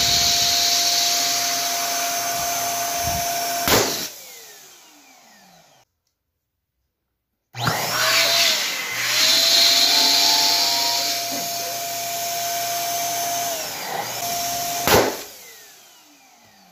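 Electric balloon pump running with a steady whine as it inflates a balloon, which bursts with a sharp pop about four seconds in. After a short silence the pump runs again on a second balloon, which pops near the end.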